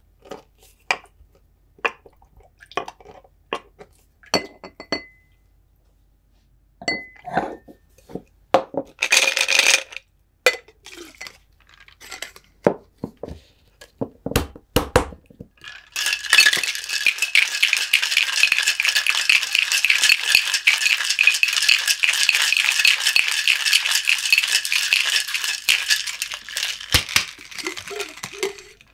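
A muddler knocks and grinds cucumber slices in a glass, with scattered clicks, a short clatter about nine seconds in, and a thump as a Boston shaker tin is fitted over the glass. Then comes about eleven seconds of dense, steady ice rattling as the Boston shaker is shaken, with a knock near the end.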